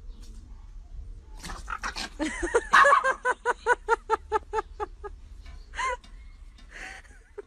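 A dog yapping in a rapid string of short, high barks, about five a second, for several seconds during a scuffle between two dogs. It is followed by a couple of single barks near the end.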